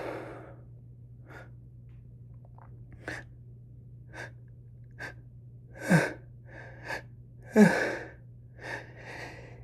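A woman sneezing repeatedly while sick and congested. The end of one sneeze fades out at the start, then come short gasping in-breaths, and two louder sneezes about six and seven and a half seconds in, the second the loudest.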